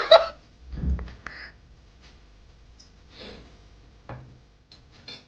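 A short exclamation at the very start, then quiet breathing with a soft low thump about a second in and a few faint clicks.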